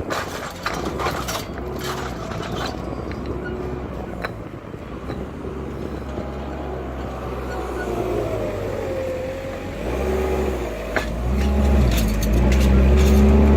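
Heavy machinery engine running, growing louder about ten seconds in, with scattered sharp knocks.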